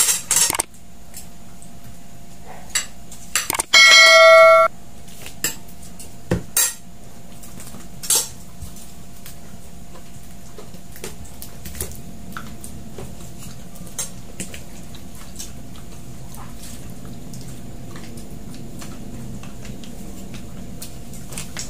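Utensils and hands working on plates and takeaway food containers during a meal: scattered light clicks, taps and clinks. About four seconds in, a loud, steady electronic tone sounds for about a second.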